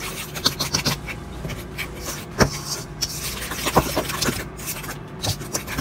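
A utensil stirring sugar and egg in a stainless steel mixing bowl: gritty scraping against the metal with many small clicks, and two sharper knocks, about two and a half and nearly four seconds in.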